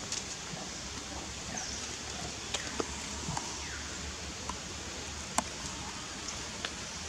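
Steady outdoor forest background hiss, with a few sharp clicks and some faint short falling chirps.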